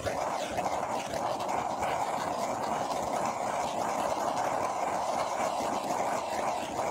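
Handheld torch burning with a steady hiss as its flame is passed over wet acrylic pour paint to pop air bubbles.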